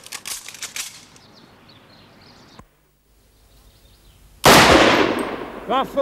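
A single loud rifle shot about four and a half seconds in, its echo dying away over a second or so. A man's voice is heard briefly at the start.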